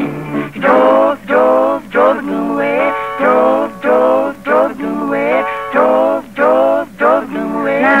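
A man singing a song with instrumental accompaniment, from an old radio broadcast recording whose sound is dull and muffled, with no treble.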